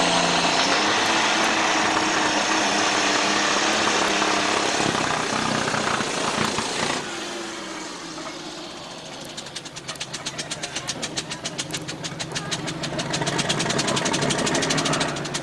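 Pulling-tractor engine running hard under load while dragging a weight-transfer sled, then cutting back suddenly about seven seconds in as the pull ends. It then idles with an even, rapid firing pulse that slowly grows louder.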